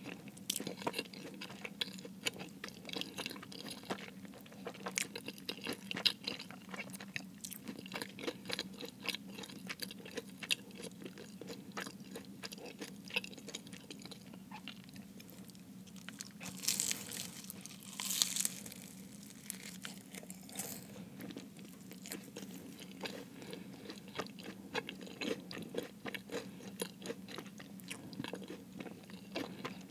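Close-miked chewing of a Jamaican beef patty, with soft crunching and crackling of its flaky pastry crust and many small wet mouth clicks. Louder crackly crunches come about 17 and 18 seconds in.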